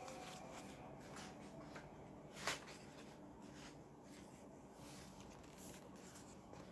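Near silence with faint, scattered rustles of paper book pages being handled, and one brief louder sound about two and a half seconds in.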